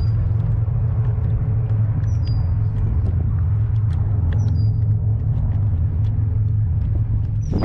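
Wind buffeting the microphone: a steady, heavy low rumble. A short high chirp sounds about every two seconds over it, four times in all.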